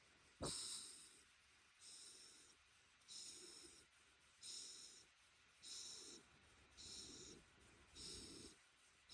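Shiba Inu dog whistling through its nose with each breath, a high 'fii' about every second and a quarter, about seven times, as its head is rubbed and it grows relaxed and drowsy. A short sharp thump about half a second in is the loudest sound.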